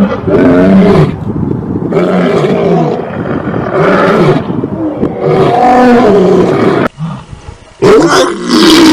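Lion roaring loudly, one roar after another in repeated surges. The sound drops away abruptly about seven seconds in, then another loud roar starts near the end.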